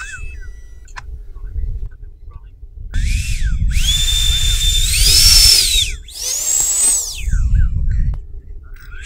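Electric ducted fan motors on a 3D-printed rocket spinning up to a high whine, holding about a second and winding down, then a second shorter spin-up and wind-down, with a third starting near the end. A low rumble runs underneath.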